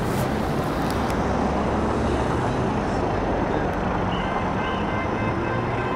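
Steady road traffic: engines and tyres of passing vehicles, with a low engine hum underneath.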